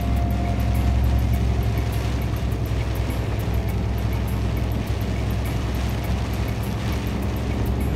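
Large truck's diesel engine and road noise droning steadily inside the cab, with background music and a light, regular beat over it.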